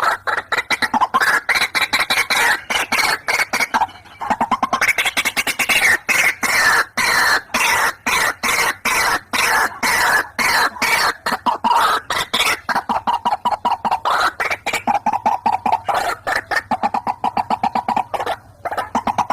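White-breasted waterhen calls played as a lure recording: a fast, unbroken run of short, harsh repeated notes, many a second, swelling and wavering in pitch. There is a brief break about four seconds in and another near the end.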